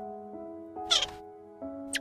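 A cat's single short meow about a second in, over background music of held notes.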